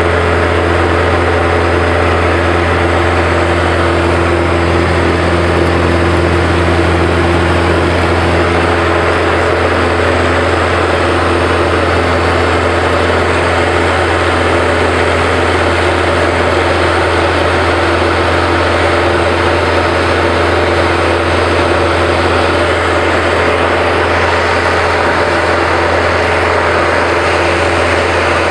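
Diamond Star single-engine light aircraft's engine and propeller running steadily, heard inside the cockpit: a deep, even hum with a few steady higher tones above it.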